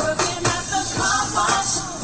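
A pop song playing as background music: a singer's voice over a steady drum beat.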